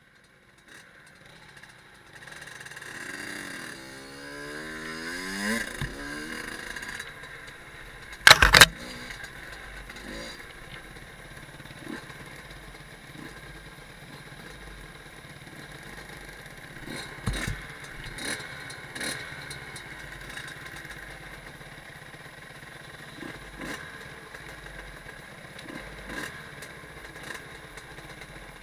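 Fantic Caballero 50 two-stroke dirt bike engine starting and revving up in a rising sweep, then running at low revs. A single sharp, loud knock about eight seconds in, and scattered clicks and clatter afterwards.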